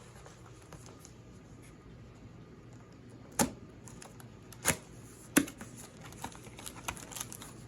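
A tripod's cardboard box and packaging being handled and opened: light rustling, then three sharp knocks about a second apart in the middle, followed by a run of smaller taps and clicks.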